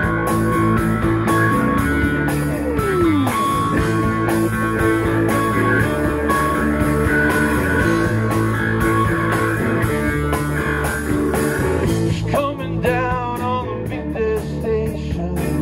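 A live rock band playing: electric guitar, bass, drums and keyboard, with a falling slide on a string about three seconds in. A singing voice comes in near the end.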